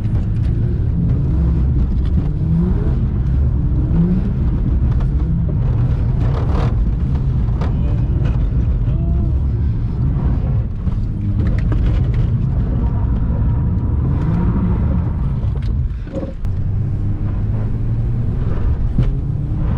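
Naturally aspirated Ford FG Falcon engine heard from inside the cabin, revving up and down repeatedly as the car is slid through corners on a wet surface, with water splashing under the tyres. Near the end the engine note drops briefly as the throttle comes off, then picks up again.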